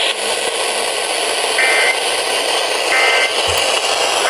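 Steady hiss of broadcast static with short bursts of two-tone digital data from an Emergency Alert System signal. Two quarter-second bursts come about a second apart, and a third starts at the end. The short, repeated bursts are typical of the end-of-message code that closes an EAS alert.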